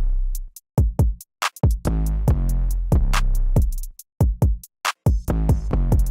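Electronic music with a punchy drum-machine beat over deep, sustained bass notes.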